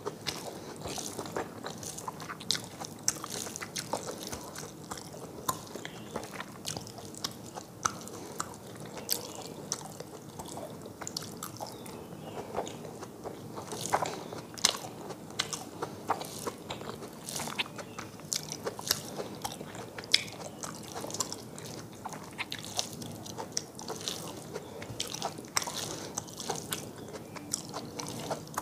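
Close-miked eating: a person chewing and crunching food with many small irregular clicks, and fingers mixing rice and curry on a metal plate.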